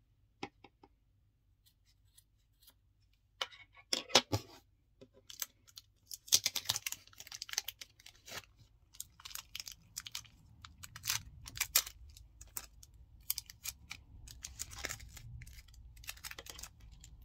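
Scattered small clicks and rustles of hands handling scissors and a macrame keychain's metal clasp and ring on a wooden table; the clicking gets busier after a few seconds.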